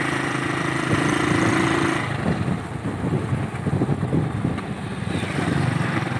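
Motorcycle engine running while riding, with wind buffeting the microphone. A steady engine hum gives way about two seconds in to rough, gusty wind noise.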